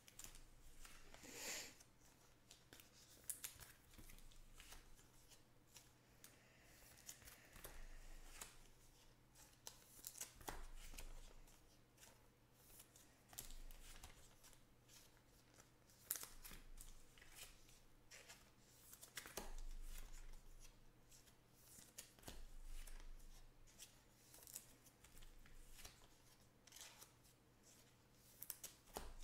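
Faint rustling, sliding and clicking of trading cards being slipped into plastic card sleeves, in scattered short bursts every second or two, over a low steady hum.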